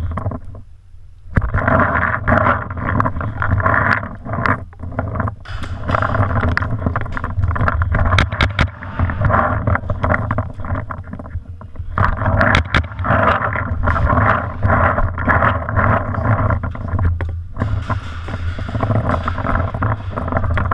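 Loud rumbling handling and movement noise on a paintball gun-mounted GoPro as the player walks, with scattered sharp clicks and cracks. The rumble drops out briefly just after the start and again near the end.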